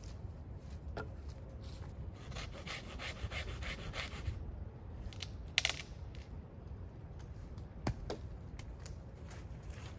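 A long dead branch rubbing and scraping against wood as it is worked into a lean-to shelter frame, with a quick run of scraping strokes in the middle and a few sharp wooden knocks, the loudest just past halfway.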